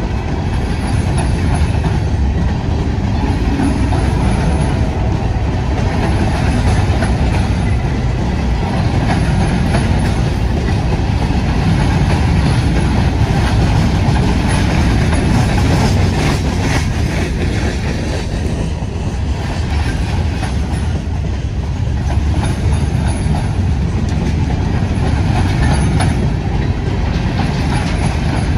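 Loaded Herzog ballast hopper cars of a freight train rolling past at close range: a steady rumble of steel wheels on rail, with occasional clicks from the trucks.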